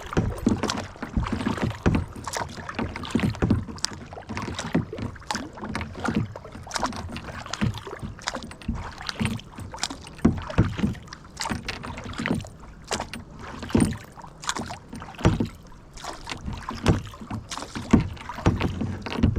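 Kayak on the water: paddle and hands splashing and dipping, with irregular knocks and bumps against the hull.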